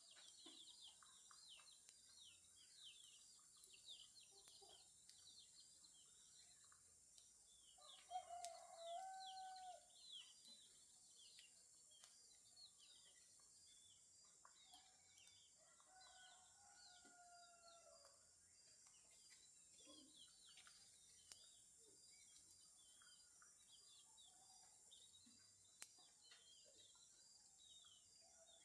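Faint rural dawn ambience: a steady high insect buzz and many small birds chirping. A rooster crows about eight seconds in and crows again, falling in pitch, around the middle.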